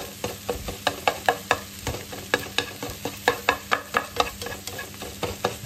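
Black nylon slotted spatula knocking and scraping against a non-stick frying pan as scrambled egg and vegetables are broken up and stirred, about three or four knocks a second. A steady sizzle of frying runs underneath.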